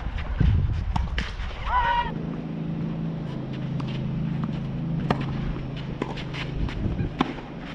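Tennis balls struck by rackets during a doubles rally, giving a few sharp pops. About two seconds in, a short high squeal or call bends up and then down. From then on a steady low hum runs underneath.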